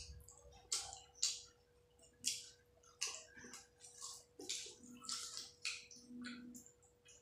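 Fingers mixing and mashing boiled rice with spinach on a plate by hand, giving short, irregular wet squelches and crackles, under a faint steady hum.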